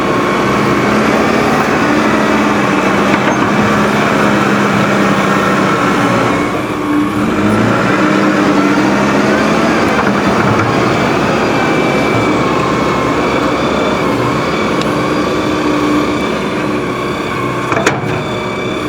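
Hydrema 906D backhoe loader's diesel engine working under load, its revs rising and falling as it digs. A single sharp knock comes near the end.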